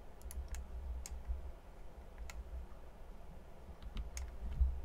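Computer keyboard keys and mouse buttons clicking lightly and irregularly, about a dozen clicks in all, over a low steady hum, with a dull thump near the end.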